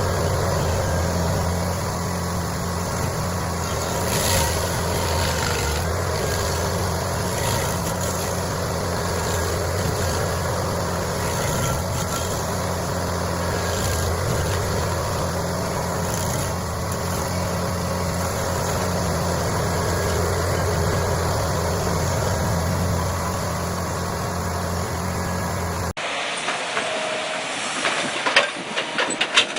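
A heavy machine's engine running steadily with a constant low hum. Near the end the sound changes abruptly to a different recording with several sharp knocks.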